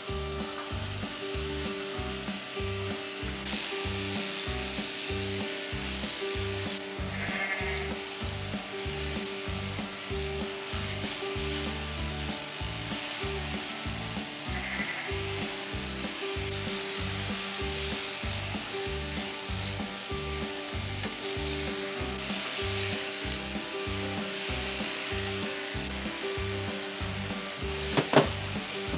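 Background music with a steady beat, with sheep bleating a couple of times over it. A sharp knock near the end.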